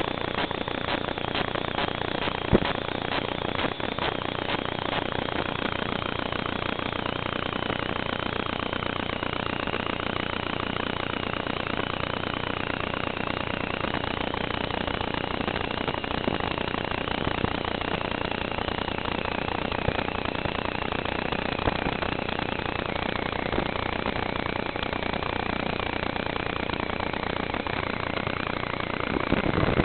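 Raw noise on the audio track of the Aomway Commander V1 FPV goggles' DVR: a steady buzzing hiss with faint tones that drift up and down in pitch, picked up over the analog video link during the flight.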